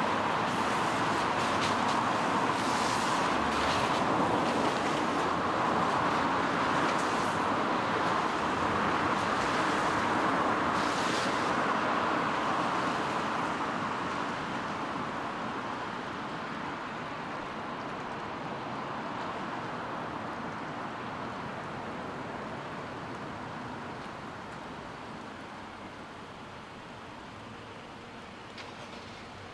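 Road traffic on a rain-soaked street: a steady hiss of car tyres on wet pavement that slowly dies away over the second half, leaving the light patter of rain.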